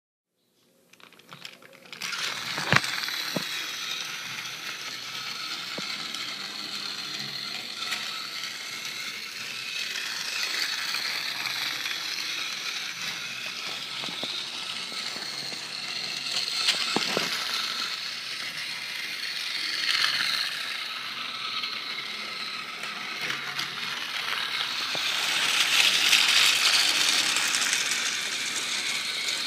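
Battery-powered TrackMaster Whiff toy engine running on plastic track, its small motor and gears whirring steadily. There is a sharp click about three seconds in, and the whirr grows louder near the end as the train passes close.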